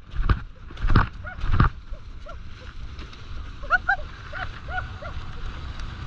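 A steady rush of travel over snow, with a few sharp knocks in the first two seconds. About four seconds in comes a quick run of short squeaky yelps, likely from the racing dogs.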